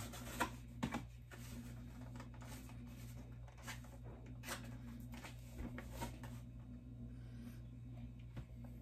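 Cardboard packaging of a boxed pair of wireless earbuds being handled: faint rustling and a scatter of light clicks and taps as the outer sleeve is slid off and the box is turned over, with a steady low hum underneath.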